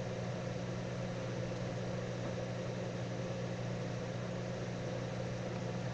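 Steady low electrical hum with an even hiss behind it, unchanging throughout.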